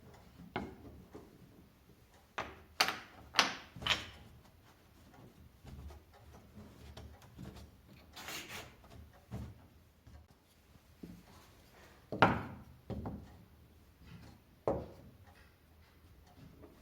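Workshop handling sounds of wooden parts: a series of irregular knocks and clunks, with a short scraping slide about eight seconds in and the loudest knock about twelve seconds in.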